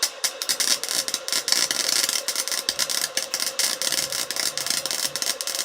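Chicago Electric wire welder's arc crackling and spattering without a break as it lays a bead, with a steady hum underneath. The wire speed is turned up to 6, which is way too fast.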